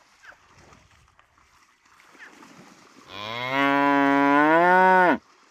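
Water buffalo giving one long low moo about three seconds in, lasting about two seconds. It rises slightly in pitch and cuts off abruptly.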